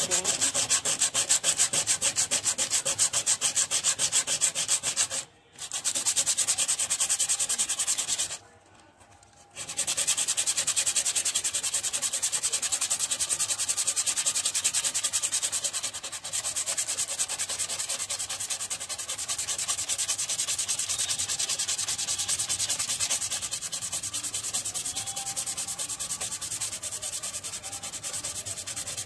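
120-grit sandpaper rubbed in quick, steady back-and-forth strokes over hardened body filler on a car panel, a dry, scratchy rasp. It stops briefly about five seconds in, stops again for about a second shortly after, then goes on.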